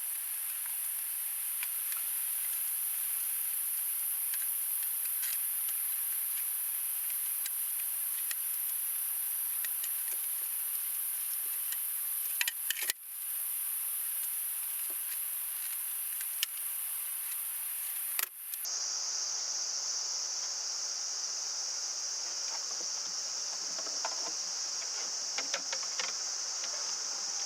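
Steady high-pitched insect chorus drone with scattered light clicks. About 18 seconds in it cuts out briefly and resumes at a lower pitch.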